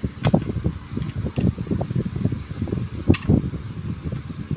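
A few sharp metallic clicks as a screwdriver is picked up off a tile floor and its tip set into a screw head in an air rifle's stock, the loudest about three seconds in, over a steady low fan-like rumble.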